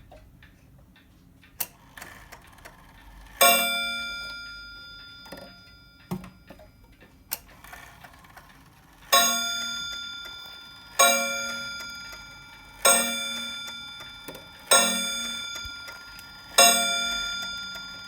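A Meister Anker 31-day clock striking, its hammer hitting a ringing chime. A few faint knocks come first, then one strike, a pause, and a run of evenly spaced strikes about two seconds apart, each ringing out and dying away before the next.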